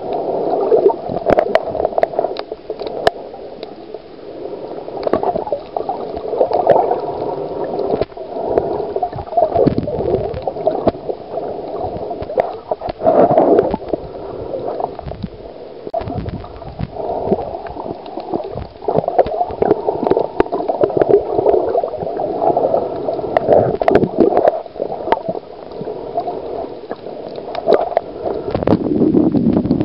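Water gurgling and sloshing around a camera held under water, with many small irregular clicks and knocks. Near the end the sound grows louder and lower.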